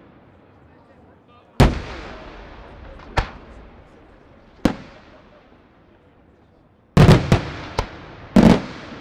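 Aerial firework shells bursting overhead in a series of sharp bangs, each echoing away in a rolling rumble. There is a loud report about a second and a half in, two lighter ones over the next few seconds, then a quick run of three near the seventh second and another loud bang near the end.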